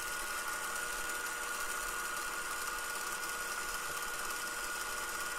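South Bend 9A metal lathe running steadily with a high, even whine, under power feed while a form tool cuts an internal thread in the bore.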